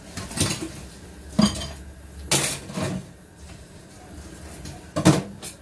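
Washing up at a stainless steel kitchen sink under a running tap: a plastic colander and a knife knocking and clattering against the sink about five times.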